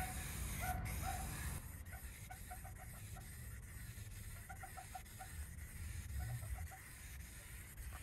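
Rust-Oleum aerosol spray paint can hissing as paint goes on for about the first second and a half, then fading. Through the rest, a bird calls in short quick runs of four or five notes, several times over.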